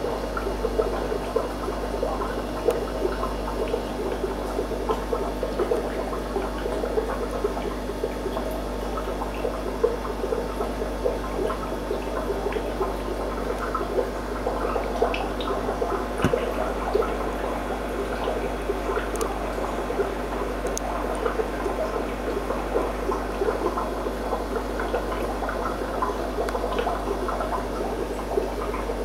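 Aquarium water bubbling and trickling steadily, a dense crackle of small bubbles over a low steady hum.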